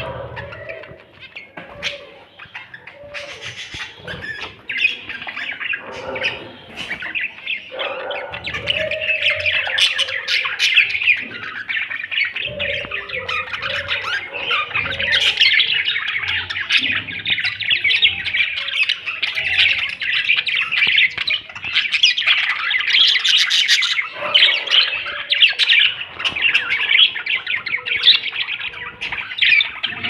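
A flock of caged budgerigars chattering and chirping without pause, the chatter growing busier and louder about eight seconds in.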